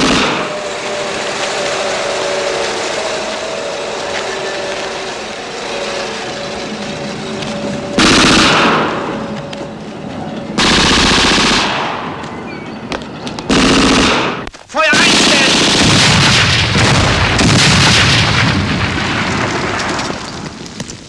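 Battle sound effects: a steady drone for the first several seconds, then from about eight seconds in machine-gun fire and several loud blasts as a canvas-covered army truck is blown up.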